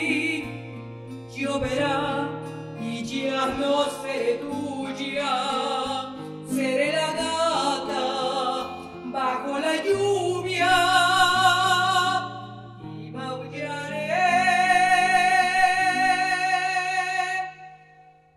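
A woman singing a Spanish-language ballad over strummed acoustic guitar. Her voice holds two long notes with vibrato in the second half, and the music fades out near the end.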